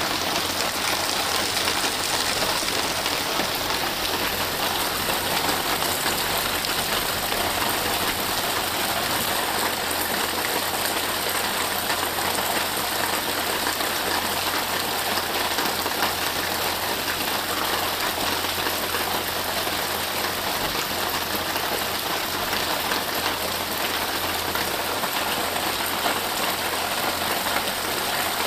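Steady rain falling on forest and vegetation: an even, unbroken hiss.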